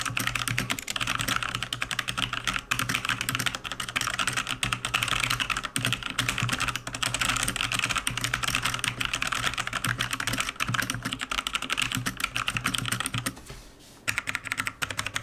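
Fast typing on a Logitech G413 Carbon mechanical keyboard with Romer-G Tactile switches: a rapid, continuous run of key clicks that breaks off briefly near the end and then resumes.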